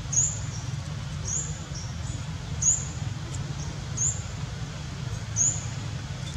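Baby macaque crying in short, high-pitched squeals, five of them at about one every second and a half, over a steady low rumble. The cries are distress calls from a baby monkey that has been hurt.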